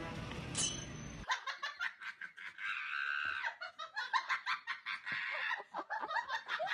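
Background music that stops about a second in, followed by high-pitched laughter in quick, bubbling bursts.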